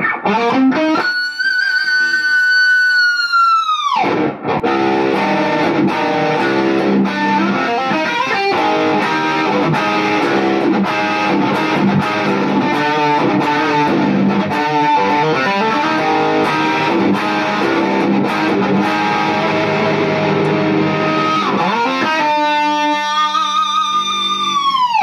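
Seven-string Schecter electric guitar played through distortion for a metal tone. It opens with a held note whose pitch drops sharply about four seconds in, then a fast, dense riff, then another held note that dives in pitch at the end.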